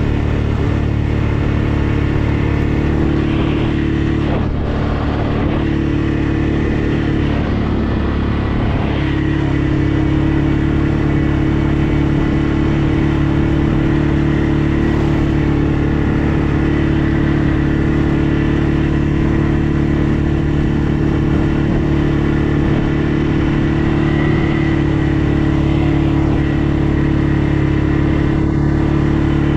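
ATV engine running steadily under way, a constant droning engine note that dips briefly about five seconds in and then picks back up.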